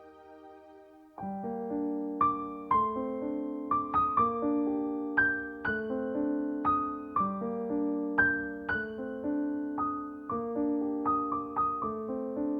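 Background piano music. A soft held chord fades, then about a second in a gentle melody of struck notes begins over a repeating lower accompaniment.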